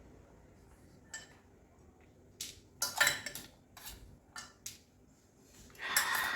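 Cutlery and dishes clinking and knocking: a string of short separate knocks, then a longer scraping clatter near the end.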